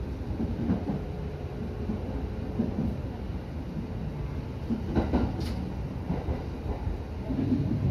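Electric commuter train running along the track, heard from the driver's cab: a steady low rumble of wheels on rail, with a brief knock about five seconds in.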